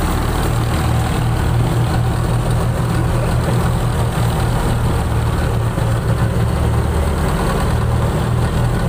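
Fishing boat's engine running steadily as the boat motors along, a continuous low hum mixed with the rush of the wake water.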